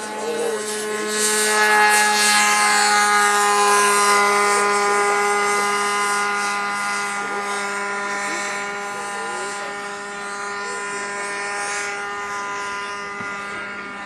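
Radio-controlled model airplane's engine and propeller running steadily at high power through the takeoff and climb-out. It is loudest about two seconds in as the plane passes, its pitch sagging slightly, then fades gradually as it climbs away.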